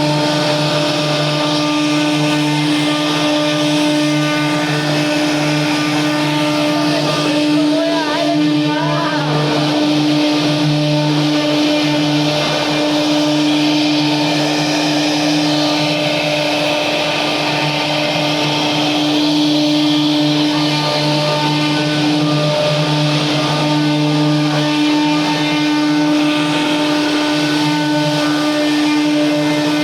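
CNC router running a 3D carving job: a steady hum from the spindle motor, with cutting noise from the bit over it.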